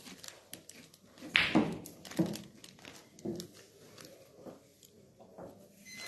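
Billiard balls on a boccette table: scattered sharp clicks and several short thuds, the loudest about a second and a half in.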